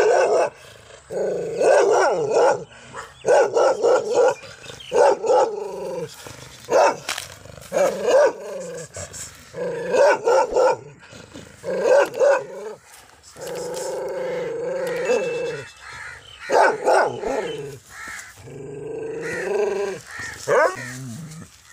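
A dog barking repeatedly and aggressively, short harsh barks about once a second, with a few longer drawn-out calls partway through. It is a territorial reaction to strange dogs nearby.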